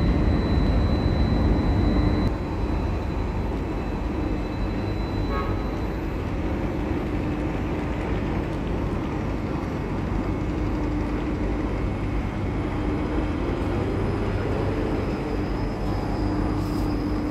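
Tugboat engine running with a steady low drone and a steady hum, working a container ship in to its berth. It is a little louder for the first couple of seconds, then holds steady.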